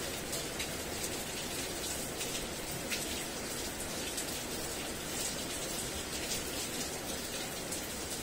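Steady rain falling, with many individual drops ticking sharply.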